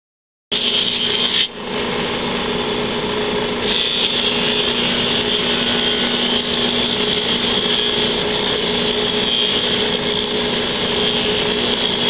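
Bench motor running a drum sanding sleeve, with a steady hum under the hiss of a flat piece being sanded against the drum. It starts about half a second in, and the sanding hiss grows louder a little under four seconds in.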